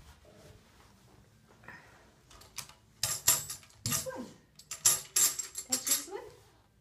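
Small hand tambourine shaken in a series of short, bright jingle bursts, starting about three seconds in.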